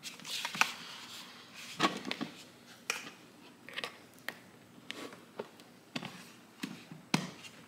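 Irregular light clicks, taps and knocks, with a brief rustle near the start, from the parts of an IKEA BLÅSVERK table lamp being handled and fitted together.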